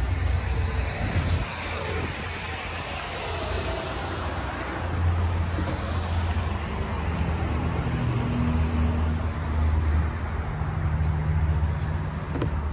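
Steady low rumble of vehicle engines and traffic, with a deep engine hum that shifts in pitch now and then.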